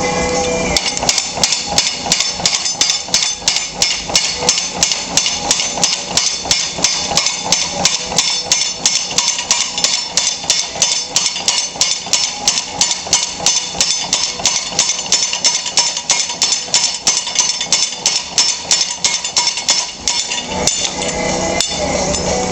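Little Giant mechanical trip hammer striking a press-brake spring swage in a fast, even run of blows, bending 1/8-inch bronze sheet cold to a 90-degree angle. The blows start about a second in and stop a couple of seconds before the end. A steady machine hum is heard before and after the blows.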